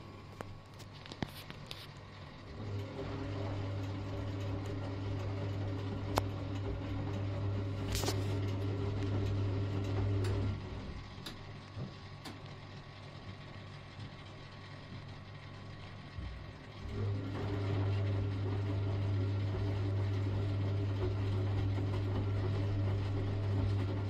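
Early-1970s V-Zug Adora 4 washing machine in its wash cycle: the motor hums as it turns the drum for about eight seconds, stops for about six, then starts turning again, the usual turn-and-pause rhythm of a wash. A few sharp clicks and knocks come while the drum is turning.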